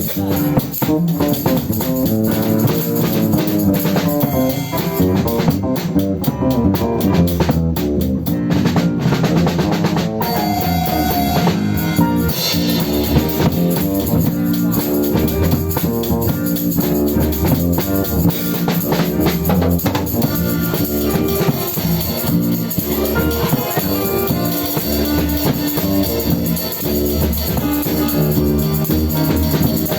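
Music with drum kit and guitar, a steady beat throughout.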